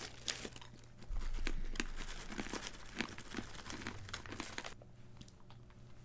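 Crinkly snack bag of Taffel Broadway nuts being handled as nuts are tipped into a hand, a run of crackles that dies down about three-quarters of the way through.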